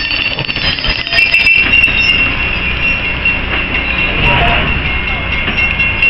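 Passenger coaches rolling slowly past on steel wheels, a steady high-pitched wheel squeal over the low rumble of the train.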